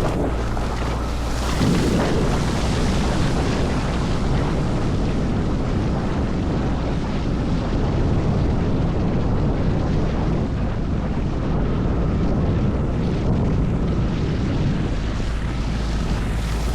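A 15 hp Tohatsu outboard motor running steadily as the inflatable boat moves through the water, with rushing water and wind on the microphone.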